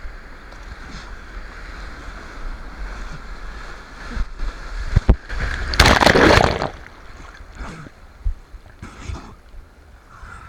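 Sea water sloshing around the camera in the surf, with a loud splash of about a second roughly six seconds in, as a wave or whitewater washes over it, and smaller splashes afterwards.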